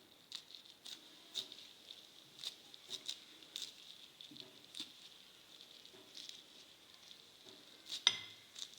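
Faint, scattered light taps and clinks of kitchenware against a glass, irregular, with one sharper clink about eight seconds in.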